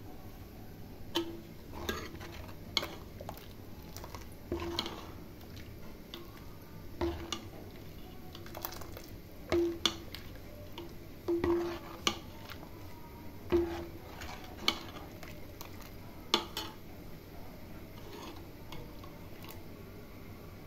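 Metal ladle stirring a watery curry in a metal pot, clinking against the pot at irregular intervals every second or two, several strikes leaving a short ringing tone.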